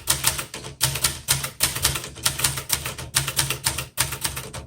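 Keys of a 1972 Webster XL-747, a small Brother-made portable manual typewriter, clacking in a quick run of typing at several strikes a second. There are brief pauses about a second in and near four seconds in.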